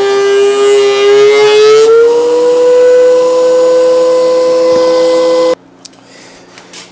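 Benchtop thickness planer running with a loud, steady whine. About two seconds in, the pitch rises and settles higher as the end-grain board clears the cutterhead and the motor unloads. The sound cuts off suddenly near the end.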